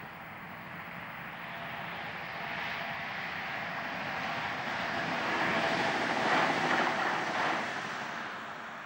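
Alstom Regio-Citadis electric tram-train passing on a main-line railway track. Its running noise swells as it approaches, is loudest about six to seven seconds in, then fades as it moves away.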